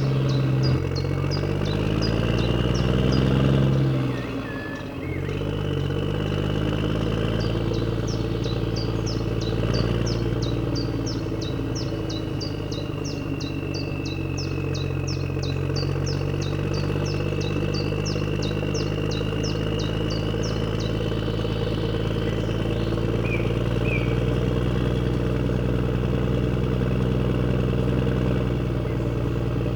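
Huina RC excavators running: a steady pitched motor hum whose pitch shifts and dips in the first few seconds, then holds. A fast run of faint high ticks, three or four a second, comes through much of it.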